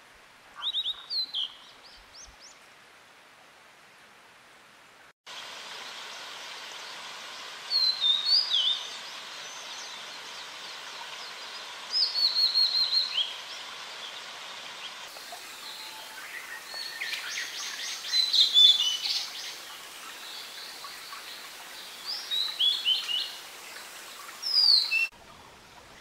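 Blue flycatcher (tledekan) song: short phrases of clear, high whistled notes, some sliding, given every few seconds. A steady hiss under them grows louder about five seconds in.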